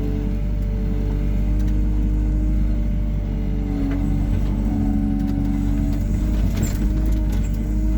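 Hyundai R140W-7 wheeled excavator's diesel engine running under working load, with a steady hydraulic whine. The whine shifts pitch about four seconds and again about six seconds in as the boom and bucket move. A few knocks and clicks come near the end.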